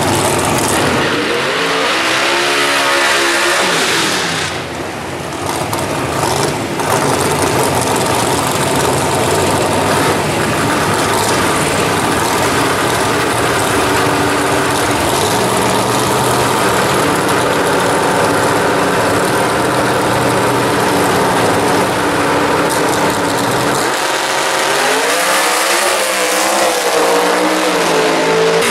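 Drag-race car engines running loud at the starting line: a few revs rising and falling early on, a steady engine note as the cars stage, then a hard launch about 24 seconds in, the engine pitch climbing and dipping through the gears as a car runs down the strip.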